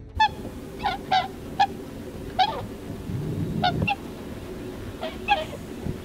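Flock of wild geese honking in flight: a string of short separate honks, some in quick pairs.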